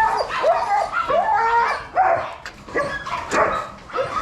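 Dogs whining and yipping, a string of short cries that bend up and down in pitch, about two or three a second.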